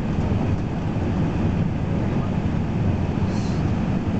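Steady low cabin noise of an Airbus A380 descending on approach: the even rush of airflow over the fuselage mixed with engine hum. A brief faint high hiss sounds about three seconds in.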